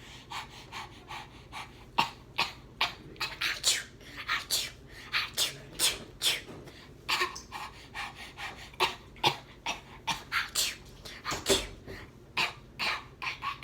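A person coughing and huffing in a rapid, irregular string of short breathy bursts, two to three a second, like someone with a Covid cough.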